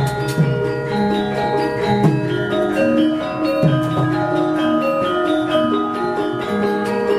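Javanese gamelan orchestra playing: ringing metallophone notes held over one another, with deep strokes falling in pitch about every second and a half and sharp clicks throughout.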